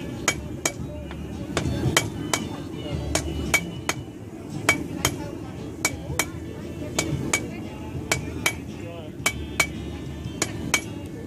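Blacksmith's hammer striking hot steel on an anvil in a steady rhythm, about two to three blows a second, each blow ringing brightly. The smith is forging a short, abrupt taper on the end of the bar.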